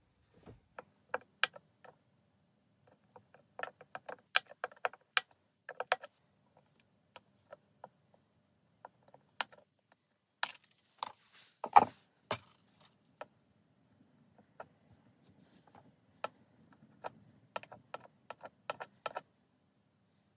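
Irregular light clicks and taps of small metal hand tools working on an LED PARcan's circuit board, with one sharper knock about twelve seconds in.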